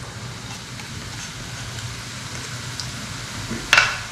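Strips of nimki dough sizzling as they fry in hot oil in a kadai. Near the end a short, sharp scrape or clatter, the loudest sound here, as the knife and wooden board push more strips into the pan.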